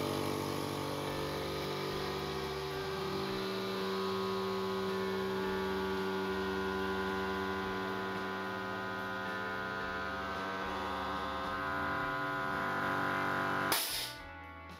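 VEVOR 2-900F8 oil-free 900 W air compressor running steadily as it fills its empty 8-litre tank, its hum deepening slightly about three seconds in. Near the end it cuts off at 8 bar with a brief hiss.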